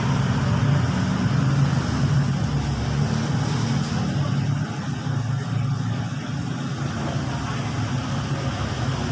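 Steady low machine hum made of several even tones, running without a break.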